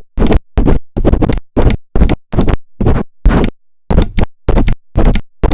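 Close-up scratching and rubbing on a microphone, chopped into short bursts about three times a second by rapid muting and unmuting, with dead silence between the bursts.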